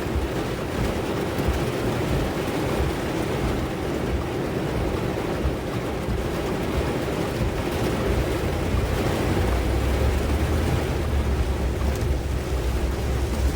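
Steady storm noise: tropical-storm wind buffeting the microphone with a low rumble over a constant rush of rain and water. The buffeting gets heavier near the end.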